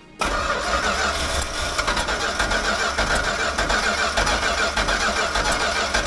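Starter cranking the 1970 Plymouth 'Cuda's 383 V8 steadily for about six seconds without it catching. The engine has spark and fuel but won't fire, which the mechanic takes to mean it is probably flooded.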